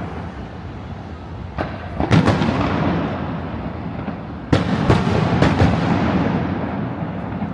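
Fireworks going off: a single bang about a second and a half in, two more just after two seconds, then a quick cluster of four or five near the five-second mark. Each bang trails off into a long rumble.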